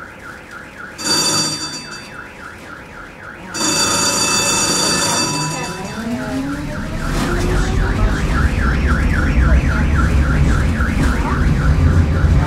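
A warbling electronic warning tone repeating about four times a second, broken by two bright ringing tones. Then a tram's traction motor whines up in pitch with a growing low rumble as the tram pulls away.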